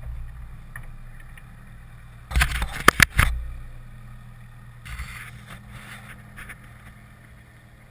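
Knocks and clatters of a parked light aircraft and its wing-mounted camera being handled, a cluster of sharp knocks about two and a half to three seconds in, then a brief rustle around five seconds. Under it, wind rumbles steadily on the microphone; the engine is off.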